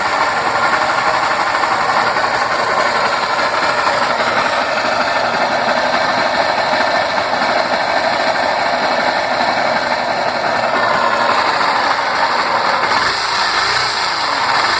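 Honda CG Fan 125's air-cooled single-cylinder four-stroke engine running steadily with a mechanical rattle. The noise is one a mechanic blamed on the top end (cylinder liner and piston), while the owner suspects the oil pump or the clutch.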